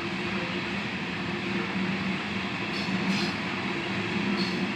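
Loaded covered hopper cars of a freight grain train rolling past: a steady rumble of wheels on rail with a low, even hum. A few brief sharper, higher sounds come around the middle and near the end.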